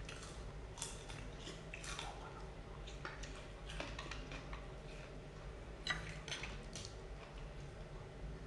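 Eating by hand: fingers pressing and scooping rice on a ceramic plate, then chewing and lip smacks, heard as scattered soft clicks and moist crackles. A low steady hum runs underneath.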